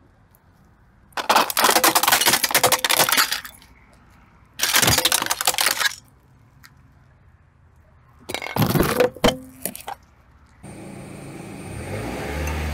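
Plastic toy car cracking and crunching under a car tyre, in three bouts of dense crackling with a few sharp cracks in the last. Near the end, a steady low rumble of the car takes over.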